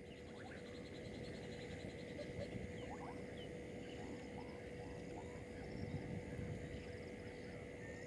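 Frogs calling at the water's edge, with short chirps repeating over several seconds and a fast high trill coming and going, over a steady hum.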